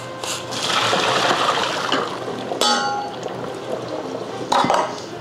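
Hot water poured from a steel pot through a strainer into a kitchen sink, a splashing rush for about a second and a half, followed by two metallic clanks of the pot, the first with a short ring.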